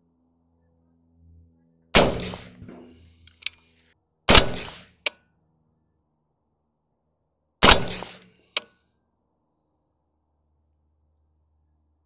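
Three single shots from a suppressed B&T APC223 rifle fitted with a Stealth Additive Works Mini 5.56 suppressor, a few seconds apart. Each shot is followed about a second later by a short, sharp ping.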